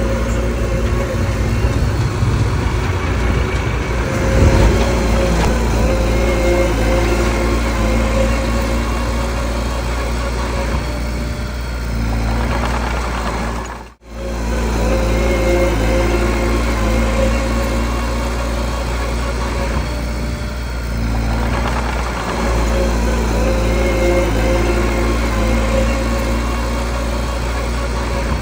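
Mini bulldozer's diesel engine running steadily while pushing stone and rock, with a few brief swells in level. The sound breaks off for a moment about halfway through, then resumes.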